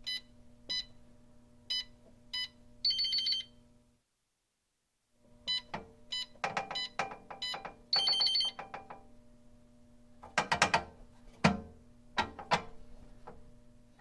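Electronic safe keypad: four short key beeps and a longer tone. After a second of silence come more key beeps mixed with clicks and a second long tone, then several loud metallic clunks and rattles of the latch mechanism near the end.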